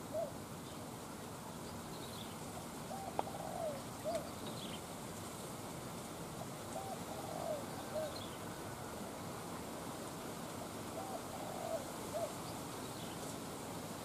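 Spotted dove cooing: a short coo phrase of a few notes, about a second long, repeated three times roughly four seconds apart, over a steady background hiss.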